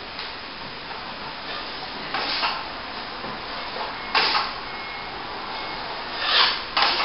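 Steel plastering trowel scraping across wet top-coat compound on plasterboard joints, four separate strokes about two seconds apart, the last two close together near the end.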